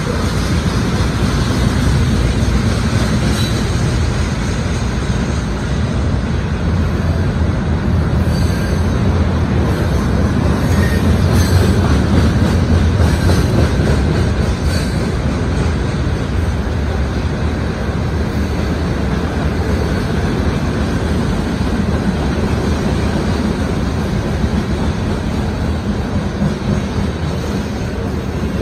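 Two freight trains rolling past on adjacent tracks: a steady low rumble of steel wheels on rail. Faint high wheel squeals come through about a third of the way in.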